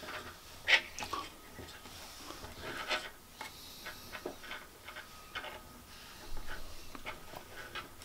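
Nylon paracord being handled and drawn through a knot on a wooden tabletop: soft rubbing and rustling of the cord with scattered light taps and clicks, the sharpest just under a second in.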